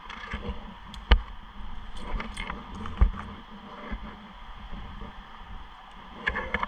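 Climbing gear being handled: a metal carabiner clicking and clinking as rope is worked through it and rustles against the trunk, with two sharp clicks, about a second in and about three seconds in.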